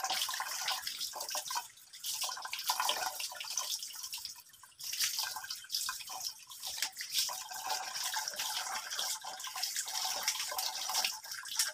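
Tap water running and splashing unevenly over an aquarium ornament as it is scrubbed with a brush under the stream, easing off briefly twice.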